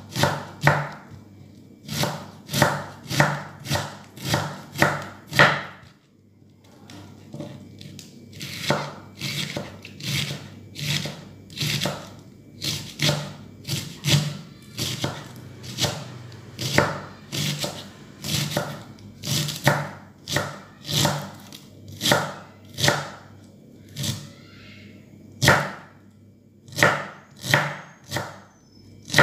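Kitchen knife slicing cabbage into thin shreds on a wooden cutting board: a steady run of crisp chops about two a second, with a short pause about six seconds in.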